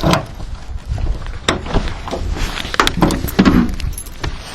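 Wind buffeting the microphone in a low rumble, with a few sharp clicks and knocks.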